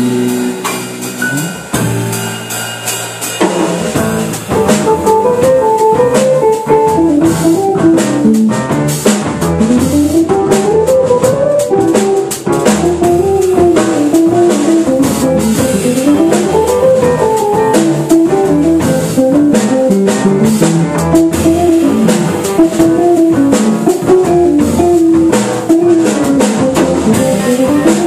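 Small jazz band of hollow-body archtop guitar, saxophone, upright bass, piano and drum kit playing. The guitar is heard on its own at first, and the drums and the rest of the band come in about three and a half seconds in, with a melody line running up and down over them.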